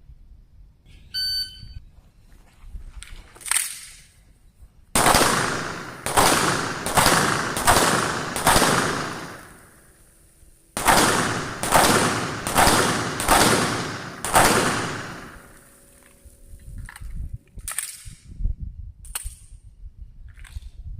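A short high beep about a second in, then handgun shots fired at practice. There are two strings of about five shots each, a little under a second apart, with a pause of about two seconds between the strings. A few fainter shots come near the end.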